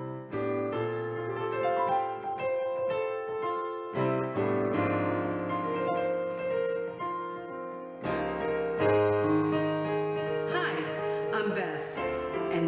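Piano intro music: a melody over held chords that change about every four seconds. A speaking voice comes in over the music near the end.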